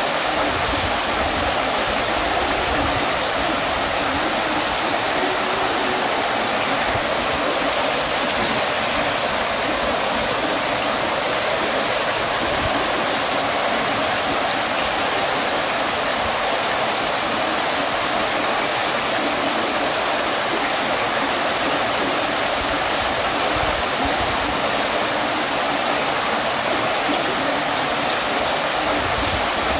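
Stone water fountain: water falling and splashing in a steady, even rush, with one short high click about eight seconds in.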